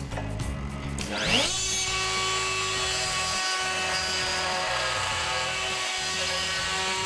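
Router motor of a manual hinge-boring pantograph spinning up about a second in with a fast rising whine, then running at a steady high whine as its 16 mm milling cutter routs the deeper hinge hollow in the door. Background music plays under it.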